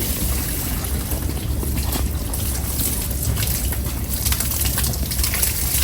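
Hoof pick scraping packed sand out of a horse's hoof, in short scratchy strokes that come thicker from about two seconds in, over a steady low rumble.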